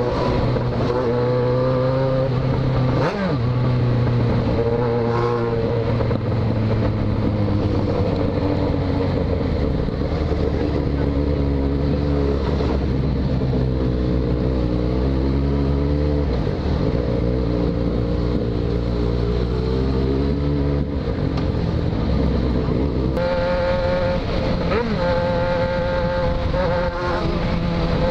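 Yamaha XJ6 inline-four motorcycle engine under way, heard from the rider's seat, its pitch climbing and dropping several times as the rider accelerates and shifts gears.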